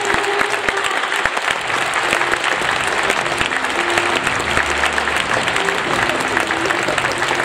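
Large stadium crowd applauding steadily, a dense patter of many hands clapping. Faint music with held notes comes in underneath about a second and a half in.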